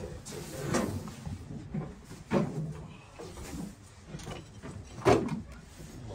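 Three separate scuffing knocks, about a second, two and a half and five seconds in, with faint room noise between.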